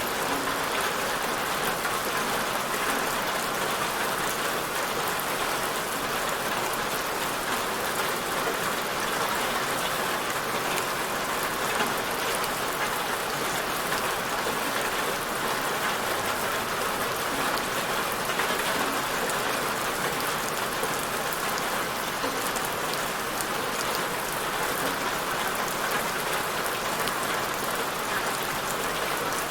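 Steady rain falling on a surface, an even hiss with fine scattered drop patter, unchanging throughout.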